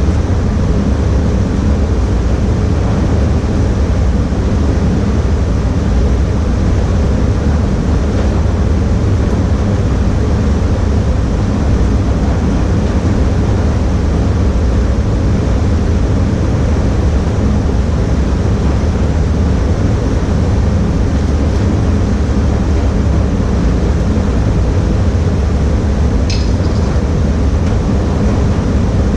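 Paint spray booth's ventilation running: a loud, even rush of air with a low hum. A brief click comes near the end.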